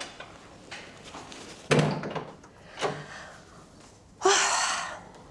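A wooden door shutting with a single sudden thud about two seconds in, then a lighter knock. Near the end comes a short breathy hissing burst.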